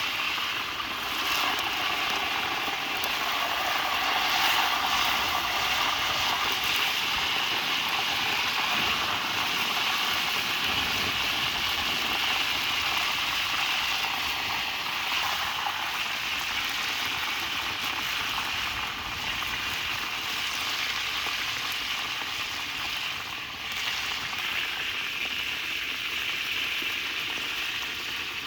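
Mudfish frying in hot oil, a steady sizzle that starts suddenly and holds without a break.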